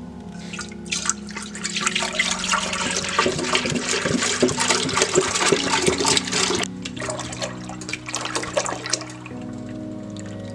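Milk pouring from a plastic half-gallon jug into a large stainless steel pot, splashing as it fills. The heavy pour starts about a second in and drops off sharply after about six seconds, continuing more softly as a thinner stream.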